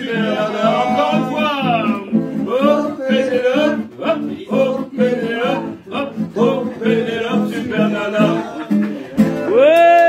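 Man singing without words over a strummed acoustic guitar in the final bars of a song, ending on a long held note near the end.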